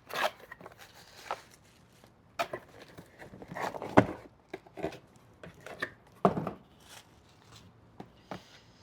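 A box being opened and its contents handled: scattered knocks, rustles and clicks, the loudest a sharp knock about four seconds in.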